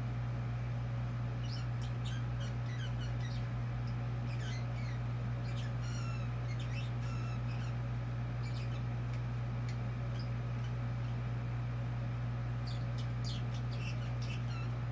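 Caged pet birds chattering in short, high chirps, some falling in pitch, in scattered bouts: busy through the first half, a lull, then again near the end. A steady low hum runs underneath.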